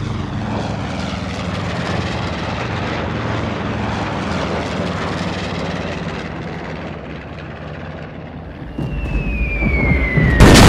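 A military truck's engine rumbles and fades as it pulls away, then the drone of approaching bomber aircraft swells. About nine seconds in, a falling bomb's whistle drops in pitch for about a second and a half and ends in a loud explosion just before the end.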